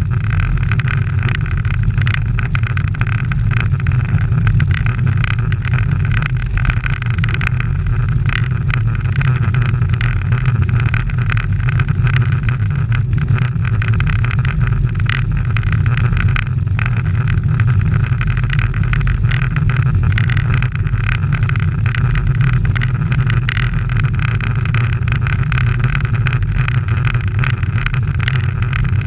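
Steady low rumble of wind and road noise on a bike-mounted action camera riding in a pack of racing cyclists, unchanged throughout.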